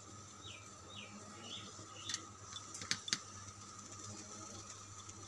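Four quick falling chirps from a small bird in the first two seconds, then three sharp clicks about two to three seconds in, over a faint steady hum.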